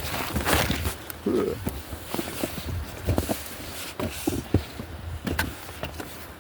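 Irregular footsteps and scuffs of someone walking a rough trail, with a longer scraping crunch about half a second in.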